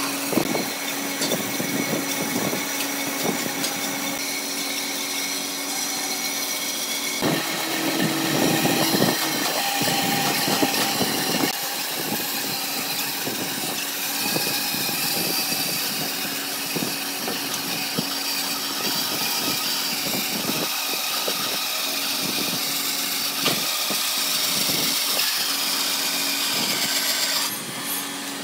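A motor runs with a steady hum while irregular knocks and taps sound over it. The sound changes abruptly about seven seconds in and again near the end.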